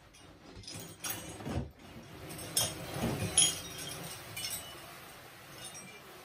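Metal sports medals hanging on their ribbons clinking and jangling against each other as a cabinet slides past beneath them, a string of light clinks that fades away near the end.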